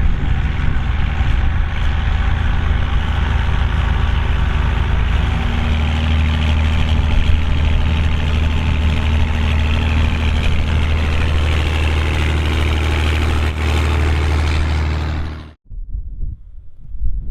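Volvo BM tractor's diesel engine running steadily, its deep note growing heavier about six seconds in. It cuts off abruptly near the end, leaving a fainter, uneven rumble like wind on the microphone.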